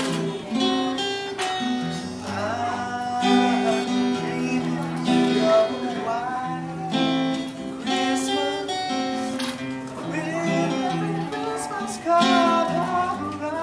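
Acoustic guitar played with plucked and strummed chords, with a voice singing a melody over it at times.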